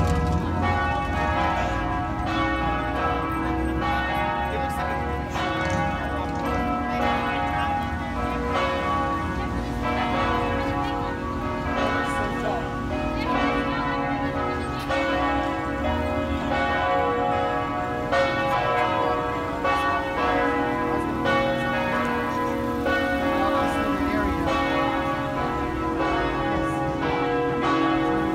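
The four Cornille-Havard bronze bells of the Notre-Dame de Québec basilica (B, C#, D# and a high D#) ringing together. Their strokes overlap at about one a second, and the tones hang on between strokes. The bells are rung for the 5 p.m. mass, the uploader believes.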